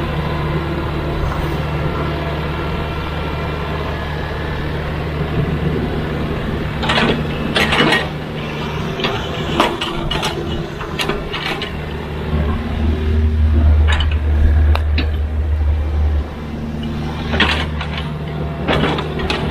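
Excavator's diesel engine running steadily, growing louder and deeper for a few seconds past the middle as it works under load, with a series of sharp clanks and knocks from the bucket and digging.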